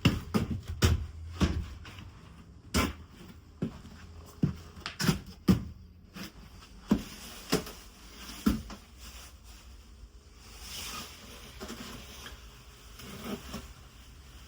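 Irregular knocks and clacks, about a dozen spread over the first nine seconds, then a short soft hiss and a few fainter knocks near the end.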